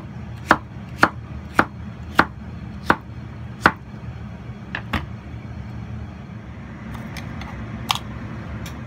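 Kitchen knife chopping small cucumbers into dice on a wooden cutting board: about seven sharp knocks of the blade on the board in the first four seconds, then a few lighter knocks, over a steady low hum.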